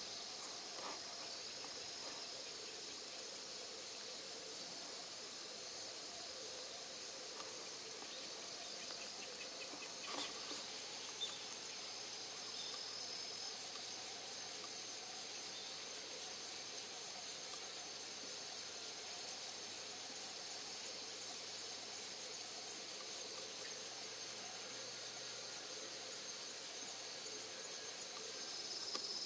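Insects calling: a steady high-pitched drone, joined about ten seconds in by a very high, rhythmic chirping at roughly three pulses a second.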